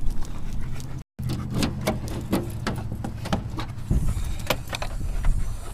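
Footsteps of a person and a leashed dog crossing asphalt: a run of light clicks and jingles about three a second, over a low rumble of wind and handling on the microphone. The sound cuts out briefly about a second in.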